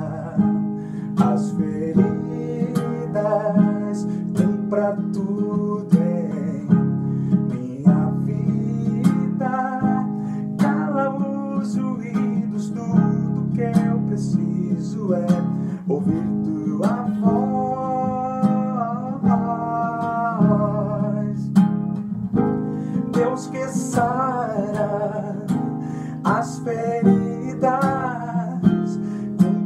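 Classical guitar with a capo strummed in a steady rhythm, about one stroke a second, with a man singing over it in several phrases.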